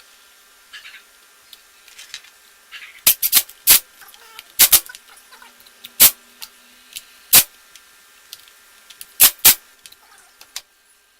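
Sharp clicks and knocks of small hard parts and tools being handled on a worktable, about nine of them at irregular intervals, several in quick pairs.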